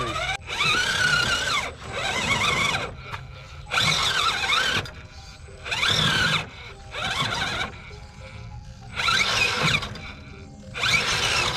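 RC rock crawler's electric motor and drivetrain whining in short throttle bursts, about seven in all at irregular gaps, each rising and falling in pitch as the truck climbs, over background music.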